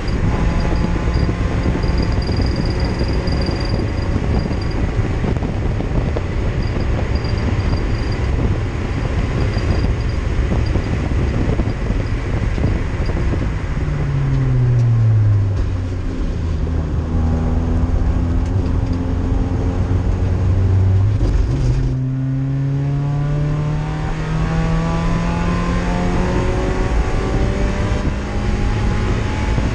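Race car engine heard from inside the stripped, caged cabin over a steady rush of wind and tyre noise. About halfway through the revs drop away and hold at a lower steady pitch for several seconds. Just after two-thirds of the way through they break briefly, then climb steadily under acceleration.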